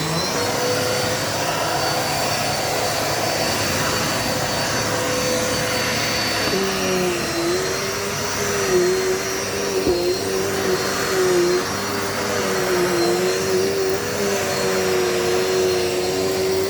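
Dirt Devil Multi-Surface vacuum cleaner running steadily, its motor and spinning brush roller making a constant whirring hum. From about a third of the way in, a lower whine joins and wavers slightly in pitch as the load on the motor changes.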